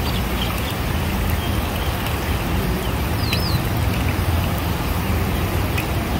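Battered potato wedges deep-frying in woks of hot oil: a steady sizzle with faint crackles, over a low rumble.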